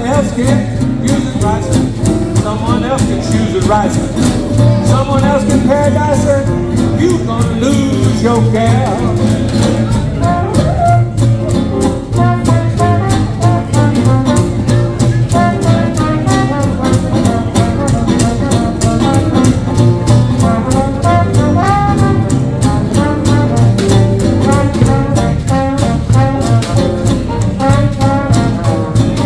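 Live hot jazz band playing a 1920s–30s style swing number, with brass horns taking the lead over a steady rhythm section beat.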